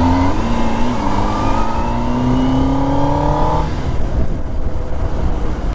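Kawasaki Ninja ZX-10R's inline-four engine accelerating hard under throttle, its note rising steadily for about three and a half seconds. Then the engine note drops away, leaving a rushing wind and road noise.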